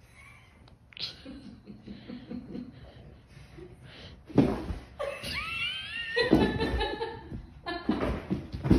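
A person laughing, starting with quiet snickers and breaking into loud laughter about halfway through.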